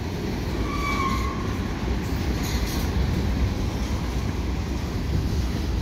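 Freight train of covered hopper cars rolling past: a steady low rumble of steel wheels on the rails, with a brief high squeal about a second in.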